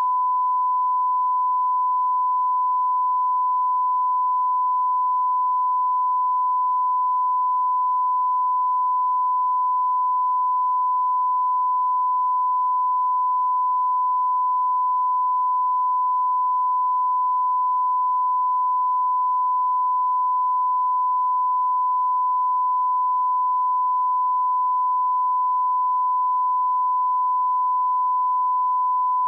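Broadcast line-up test tone: a single steady 1 kHz sine tone, unbroken and unchanging, which cuts off abruptly at the end.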